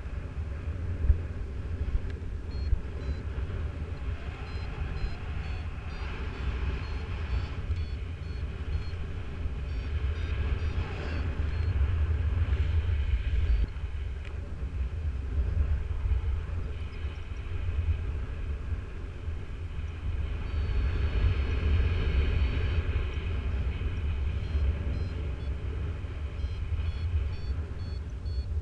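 Wind rushing over the microphone in flight, with a flight variometer beeping in runs of short high beeps that come and go, most steadily in the second half; the beeping is the sign of climbing in lift.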